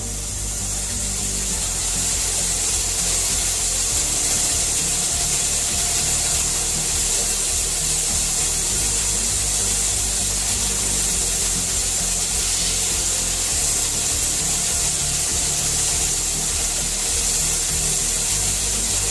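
All American 921 pressure canner at 10 psi, steam hissing steadily past its weighted pressure regulator as it vents at pressure, with a steady low hum underneath.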